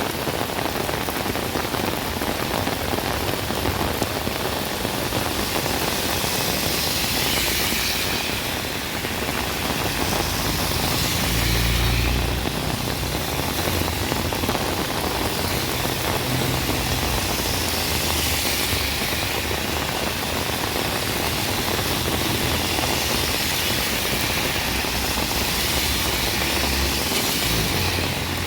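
Heavy rain falling steadily, a dense, even hiss, with a low rumble swelling about ten to thirteen seconds in.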